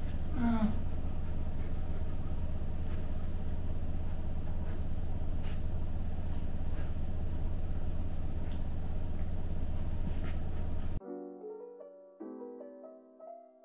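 Steady low hum and hiss of a quiet room, with a brief squeal that falls sharply in pitch near the start. About eleven seconds in the hum cuts off and soft piano music begins.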